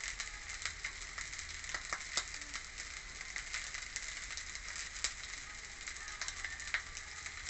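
Cooked rice sizzling and crackling in a hot frying pan as handfuls of it are crumbled in for fried rice: a steady hiss dotted with small sharp crackles.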